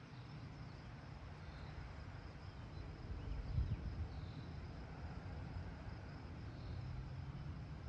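Wind buffeting the microphone in uneven low gusts, with a faint steady insect chorus and a few soft high chirps behind it.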